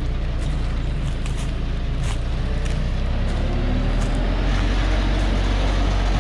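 Diesel engine of a heavy truck loaded with acacia logs running at low revs as it creeps forward down a steep dirt slope, its pitch rising a little past halfway, with a few sharp clicks.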